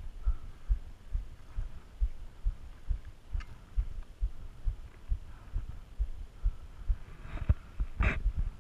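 Regular deep thumps, about three a second, of a hiker's footsteps on a dirt trail jolting a body-worn camera. Near the end a plastic water bottle crackles twice as it is raised to drink.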